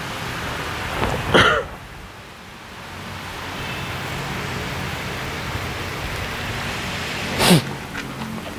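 Steady hiss and low hum inside the cabin of a 2018 Toyota Rush with its engine running. Two short, loud noises break it, one about a second in and one near the end.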